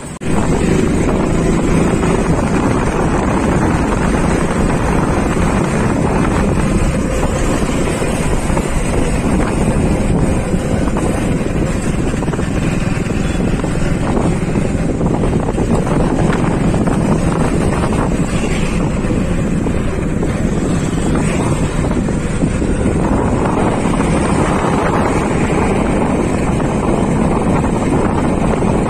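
Steady wind buffeting the microphone on a moving motorcycle, with the rush of engine and road noise underneath.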